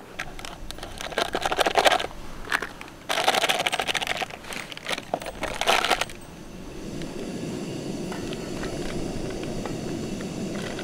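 Crinkling, crackling handling of a plastic sachet in bursts. About six seconds in, it gives way to the steady hiss of a gas canister stove burner heating a kettle for tea.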